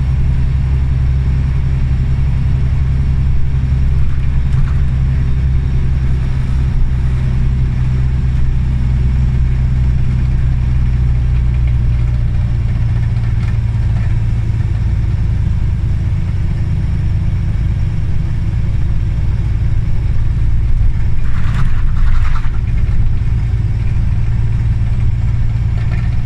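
Scania OmniCity articulated city bus under way, its engine running with a steady low drone. The engine note shifts about halfway through, and two short higher noises come close together a little over three-quarters of the way in.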